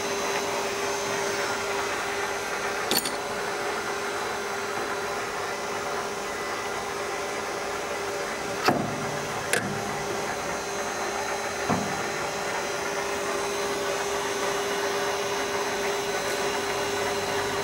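WEISS WBL290F lathe running with a steady motor and gear whine. A few sharp metallic clicks and knocks come over it, the loudest about nine seconds in, as a live center is fitted into the tailstock and brought up to the work.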